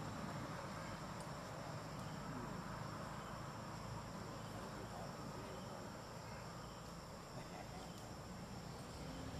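Steady high-pitched insect trilling in two unbroken tones, over a low background rumble.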